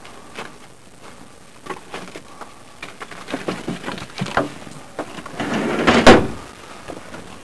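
Scattered small knocks and clicks of handling at a metal cabinet, then a louder scraping slide about five and a half seconds in that ends in a sharp knock.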